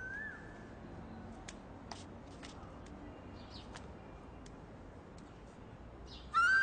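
Quiet outdoor background with a few faint scattered clicks. Near the end, a loud sustained music note comes in.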